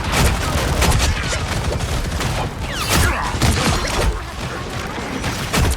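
Video game combat audio: rapid gunfire and impact effects, with game ability sounds mixed in, quieter for a moment about four seconds in and a strong hit near the end.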